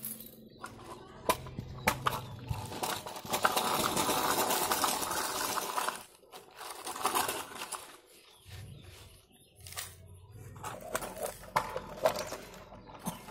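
Plastic toy vehicles being handled: scattered clicks and knocks as they rattle and bump together, with a couple of seconds of denser scraping, like a toy dump truck pushed through sand, a few seconds in.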